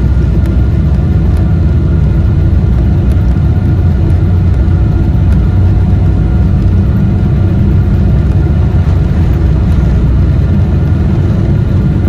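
Steady loud rumble of a Boeing 777-300ER's twin GE90-115B jet engines and rushing air, heard inside the cabin, with a few faint steady tones above it.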